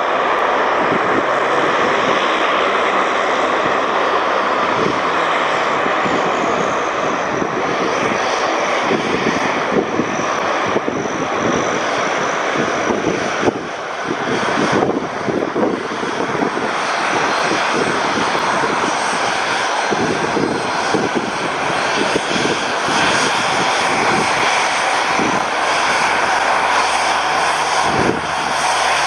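Cessna 750 Citation X business jet's twin Rolls-Royce AE 3007 turbofan engines running loud and steady as the jet departs, a broad rush with a thin high whine over it.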